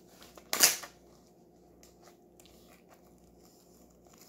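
Plastic shrink wrap on a record box set crackling as it is pulled and torn by hand: one short loud crackle about half a second in, then faint crinkles and rustles of the plastic.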